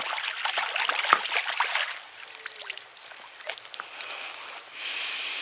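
A hooked trout thrashing at the surface inside a rubber landing net, splashing hard for about two seconds, then quieter drips and sloshes as the net is lifted from the water, with a short steady hiss near the end.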